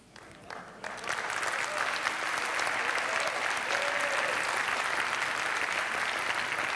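A large audience applauding: a few scattered claps, then from about a second in, sustained applause from the whole crowd.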